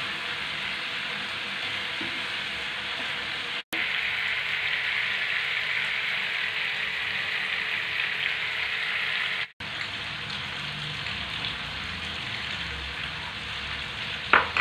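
Chicken drumsticks frying in sauce in a nonstick pan: a steady sizzle, cut off for an instant twice. A short clink near the end.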